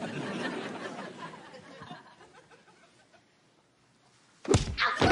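Studio audience laughter fading away, then a couple of seconds of near quiet. About four and a half seconds in comes a loud thud, the kick landing.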